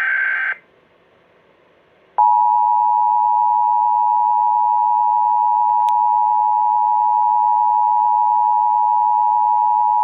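Emergency Alert System test signal. A short burst of the warbling digital header tones ends about half a second in. After a brief gap the EAS two-tone attention signal comes in: two steady tones sounding together, held loud and unchanging for about eight seconds, then cutting off abruptly.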